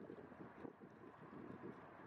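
Faint wind buffeting the microphone: a low, gusty, uneven rumble.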